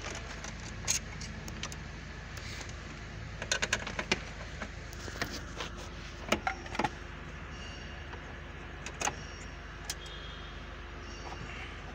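Scattered clicks and clinks of a tool and plastic dashboard trim being pried and worked loose on a Land Rover L322, coming in small clusters through the stretch, over a steady low hum.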